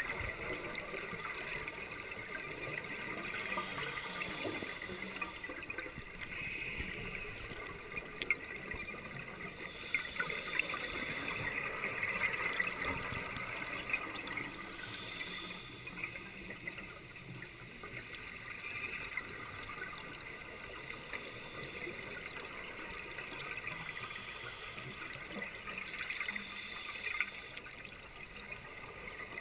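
Underwater bubbling and gurgling from scuba divers' exhaled regulator bubbles, swelling and fading unevenly, with a few sharp clicks.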